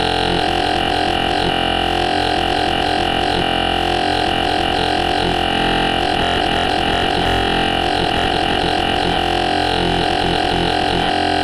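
Growl bass from the Xfer Serum software synth, built from a wavetable made of a sheep's bleat, playing continuously with a repeating wobble as an LFO sweeps the wavetable position.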